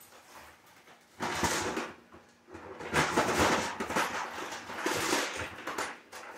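Rustling and rummaging of someone searching through spare parts, in a short bout about a second in and a longer one from about two and a half seconds in until near the end.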